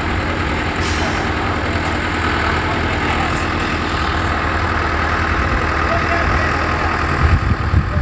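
Heavy engine idling steadily, a constant low hum, with a few uneven low thumps near the end.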